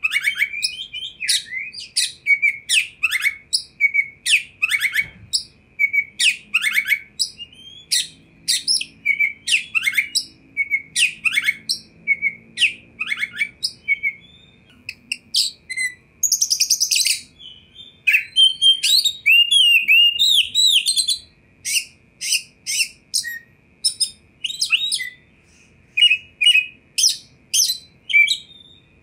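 Oriental magpie-robin singing vigorously: a rapid, unbroken stream of loud, sharp whistled notes and chirps. A little past halfway it gives a harsh rattling burst, then a run of fast, intricate phrases.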